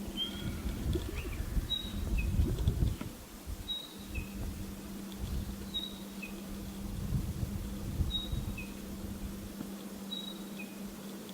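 Spotted pardalote calling a two-note whistle, a high note followed by a lower one, repeated about every two seconds, five times. Under it runs a steady low rumble and hum of background noise.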